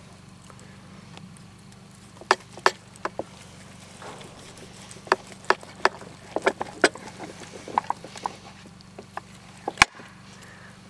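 Carving knife and fork clicking and scraping against a plate while slicing a roasted prime rib: about a dozen short, sharp clicks at irregular intervals, with the sharpest one near the end.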